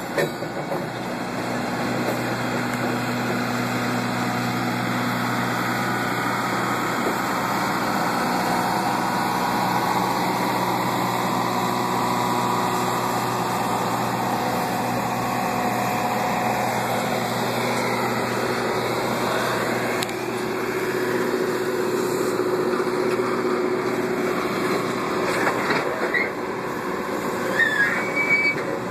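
Passenger exhibit cars of a Norfolk Southern train rolling slowly past at close range: a steady hum and rumble of wheels on the rails, with a few short high wheel squeals near the end.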